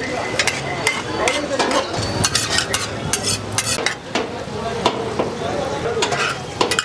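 A metal spatula scraping and tapping on a large flat tawa as chicken tikka pieces are stirred through sizzling butter gravy. Many quick, irregular scrapes over a steady sizzle.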